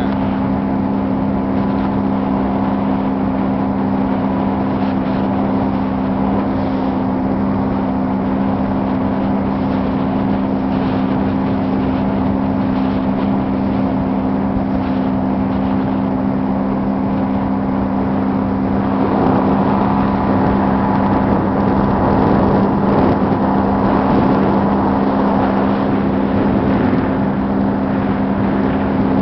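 A small rental motorboat's engine running at a steady speed, with a constant drone over the rush of water and wind. It gets a little louder and noisier for several seconds in the second half.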